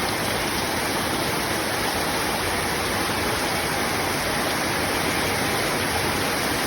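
Heavy rain pouring down, a steady dense hiss with no let-up.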